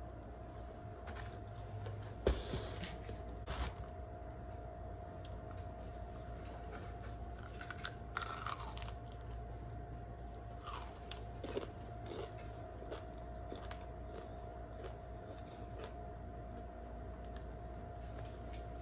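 Close-up eating sounds: biting and chewing chicken wings, with scattered crunches and wet mouth clicks, the loudest about two seconds in, over a faint steady hum.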